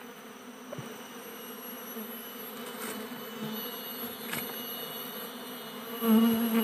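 Swarm of Asian honeybees (Apis cerana) buzzing steadily around their opened nest in a hollow tree trunk. The buzz swells much louder for a moment near the end.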